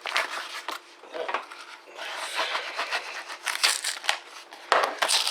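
A strongly glued cardboard shipping box being torn open by hand: irregular ripping and crinkling of the cardboard and packaging, with sharp tearing strokes.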